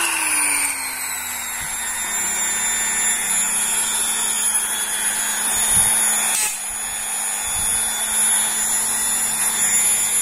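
Electric mini grinder (rotary tool) motor running with a high whine; in the first second or so its pitch falls as the speed control is turned down from its top setting, then it runs steadily at the lower speed.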